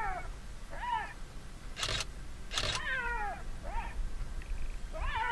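Black-backed jackal giving a series of yelping alarm calls at a leopard, about one a second. Each call is a short cry that falls in pitch, some opening with a sharp crack.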